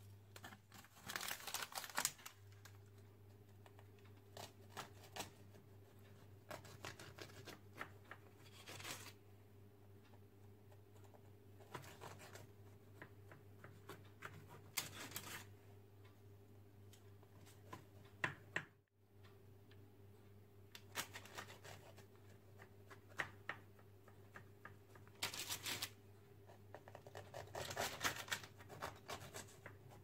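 Kitchen knife scraping as it cuts through a tray-baked blondie on parchment paper, with the paper crinkling, in short scattered strokes over a steady low hum.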